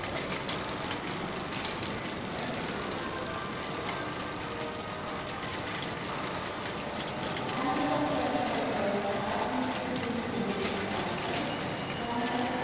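Loaded metal shopping trolley being pushed across a tiled floor: a steady rattle from its wheels and wire basket.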